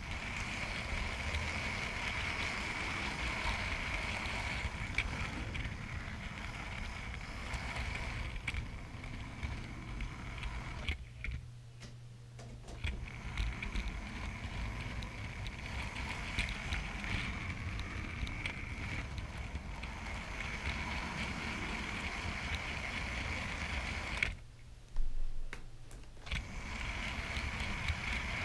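Electric model train running along the layout's track, heard from a camera riding on the train: a steady rumble of wheels on rail with a faint whine and light clicking over the rail joints. The running drops away briefly twice.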